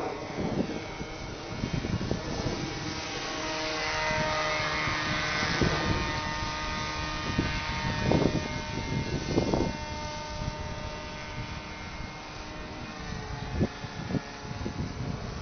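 Motor and propeller of a radio-controlled model airplane whining in flight, the pitch drifting a little as the throttle changes. Wind buffets the microphone in uneven gusts.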